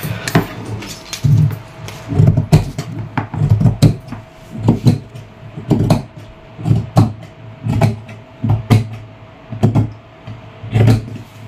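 Large tailor's shears cutting through folded cloth on a table. A snipping crunch with a knock of the metal blades comes about once a second, a dozen times.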